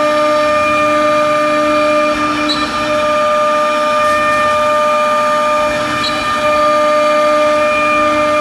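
CNC router spindle running with a steady high whine while a 12 mm ball-nose bit carves a relief into pine, with the noise of the cut beneath.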